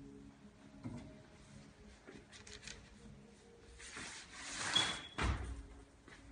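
Faint handling noises: a light knock about a second in, then a rustle that swells about four seconds in and ends in a dull thump.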